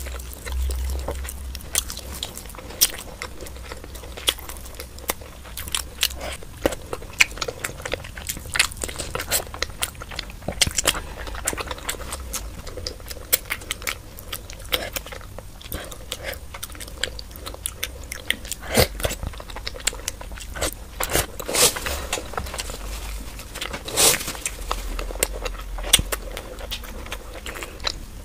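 Close-miked chewing and biting of soft Indian sweets such as rasgulla and gulab jamun, with irregular mouth clicks and smacks throughout.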